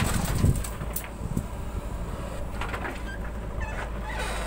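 JCB 3DX backhoe loader's diesel engine running steadily as the arm swings back and lowers the bucket. In the first second, soil tips from the bucket into a steel tractor trolley with a few thumps.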